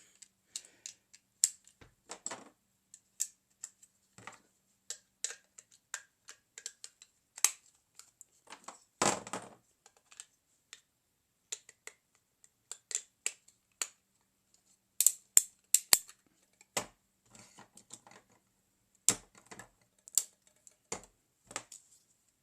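Sparse, irregular small clicks and taps of hard plastic LEGO pieces being handled, with a heavier knock about nine seconds in and a quick cluster of clicks around fifteen seconds in.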